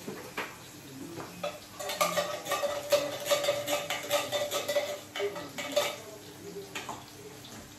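A spoon stirring quickly and clinking against the side of a pot or cup in a kitchen, with a ringing tone. The run of clinks lasts about four seconds, starting about two seconds in, and a few single knocks come before and after it.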